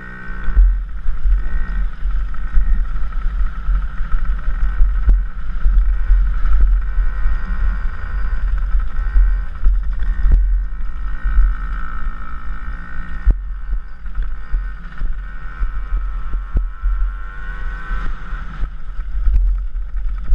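Dirt bike engine running and revving up and down with the throttle as the bike rides over rough grass, with heavy wind rumble on the helmet-mounted microphone and a few brief knocks from bumps.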